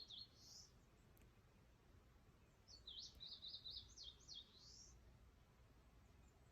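Faint bird song: a brief chirping phrase at the start, then a longer run of quick chirps about three seconds in, over a low steady background rumble.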